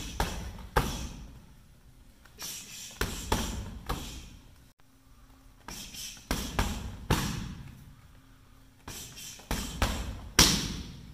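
Boxing gloves and kicks smacking focus mitts as a kickboxing combination is drilled: four bursts of several sharp strikes each, the loudest near the end.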